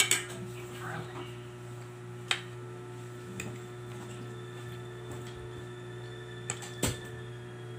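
A few sharp clinks of a fork against a dinner plate: one at the start, one a little over two seconds in, and two close together near the end, over a steady low hum.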